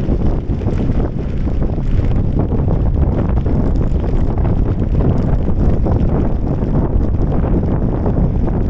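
Wind buffeting the microphone while riding along, a loud steady low rumble.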